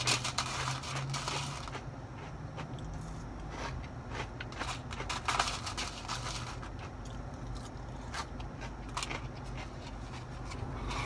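Close-up chewing of crunchy fried food, with scattered clicks and scrapes, over a steady low hum.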